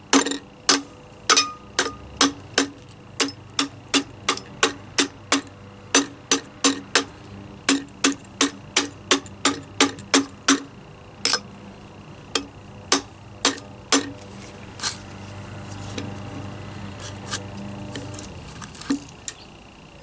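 Sharp ticking clicks in a fairly even rhythm, about three a second, thinning out after about eleven seconds, over a faint steady tone.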